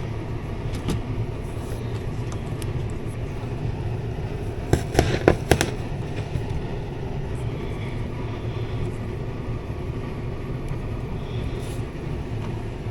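Air conditioner air handler blower running with a steady low rumble, with a quick cluster of knocks and clicks about five seconds in.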